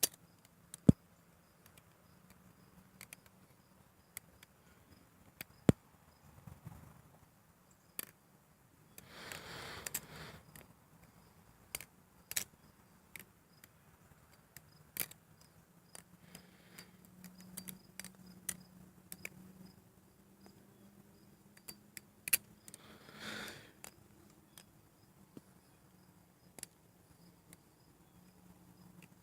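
Butterfly knife (balisong) being flipped: irregular sharp metallic clicks and clacks as the handles swing around and snap against the blade and pins, with a couple of short soft rustles in between.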